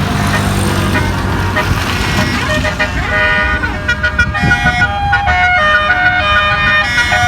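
Bus engine running, then about three seconds in a bus's 'telolet' multi-tone air horn starts playing a tune of stepped notes that keeps going to the end.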